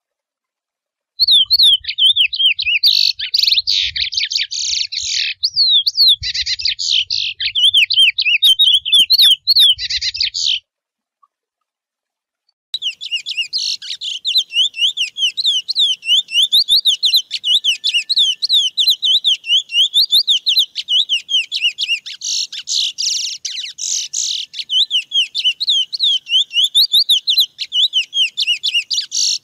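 Male chestnut-bellied seed finch (curió) singing its natural wild 'mateiro' song: a long, fast warbling run of rapid rising-and-falling whistled notes. The song starts about a second in, breaks off for about two seconds near the middle, then resumes.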